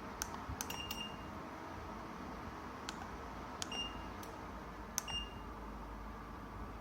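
Three short high electronic beeps, each set off with a click, from an electric fireplace-style ceramic fan heater's controls as its settings are pressed, over a steady hiss.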